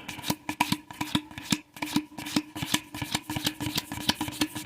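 Yu-Gi-Oh trading cards being flipped through one after another by hand: a quick, irregular run of light clicks and taps, several a second.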